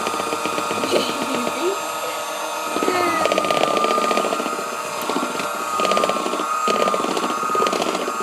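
Electric hand mixer running steadily, its beaters whirring through chocolate cake batter with a constant whine.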